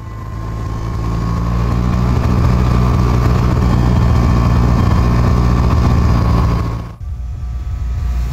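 Lynx ST 550 snowmobile's two-stroke engine running steadily under way, heard from the rider's seat, with a thin steady whine above the engine. About seven seconds in the sound drops off suddenly, then the engine is heard again from farther away as the machine approaches.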